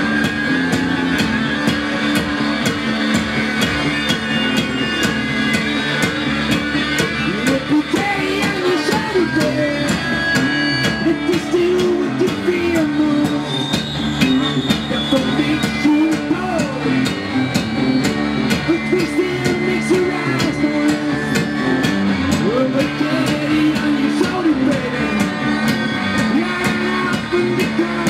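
Live rock band playing: a held guitar drone under a steady drum beat, with a man singing from about a quarter of the way in.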